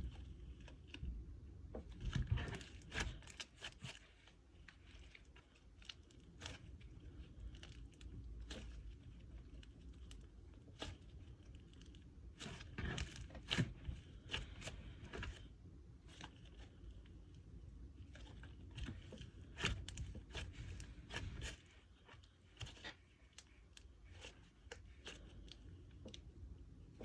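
Butter slime with soft clay being kneaded and squished by hand, giving faint, irregular sticky crackles and clicks that bunch together in busier stretches of mixing.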